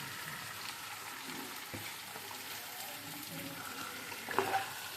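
Onion and ginger-garlic masala sizzling steadily in a pan over the gas flame, with a couple of faint knocks about two seconds in and near the end.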